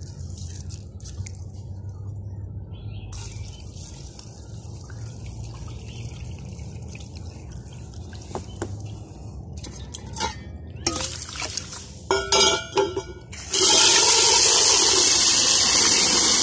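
A hand swishing unhusked paddy rice grains around in water in a stainless steel bowl to rinse them. A few splashes follow about eleven seconds in, and then water is poured from a steel jug into the bowl in a loud, steady rush.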